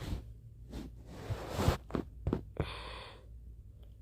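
A person breathing heavily close to the microphone: a long noisy exhale about a second in and a shorter sigh near the end, with a few small clicks.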